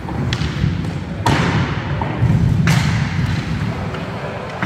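Inline skate wheels rumbling on a wooden sports-hall floor, with sharp clacks of hockey sticks striking, the loudest two about a second in and near three seconds in, each echoing in the hall.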